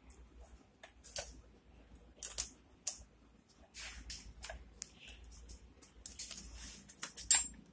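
Irregular small metallic clicks and clinks of hands and parts being fitted on a Bajaj Boxer motorcycle's cylinder head, likely the tappet caps going back on, with one sharper clink near the end.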